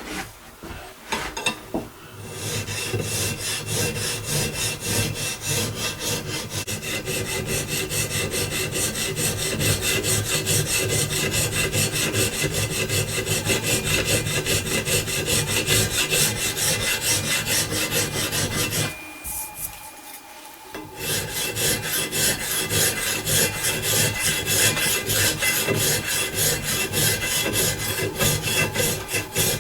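Hand file draw-filing a muzzleloading rifle barrel: rapid, steady scraping strokes of metal on metal. The strokes stop for about two seconds past the middle, then carry on.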